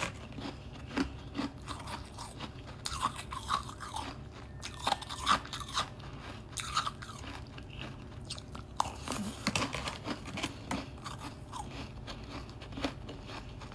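A person biting and chewing hard frost close to the microphone: irregular crisp crunches, with a few louder bites scattered through.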